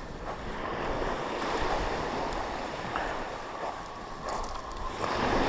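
Surf washing onto the beach, with wind buffeting the microphone in a low rumble.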